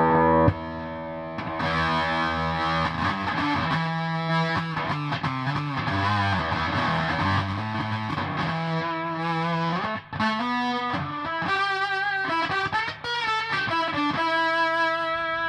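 Electric guitar, a Squier Classic Vibe Stratocaster, played through a Behringer Bass Brassmaster fuzz pedal into a Hiwatt amp: distorted fuzz tone with the sensitivity turned up, which makes it sound like it is coming alive. A slight octave can be heard in the fuzz.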